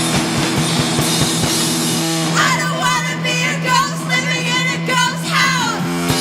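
Sludge punk band playing: a droning distorted guitar and drums, with vocals that come in about two seconds in and stop near the end.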